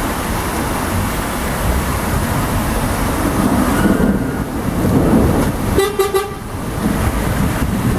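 Steady rush of heavy rain and floodwater running over a street, with a short car horn toot about six seconds in.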